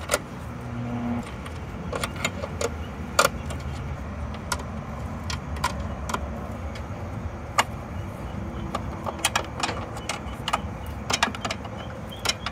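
Scattered sharp metallic clicks and clinks of a wrench and loose metal parts as pieces are taken off a piston pump, over a steady low rumble.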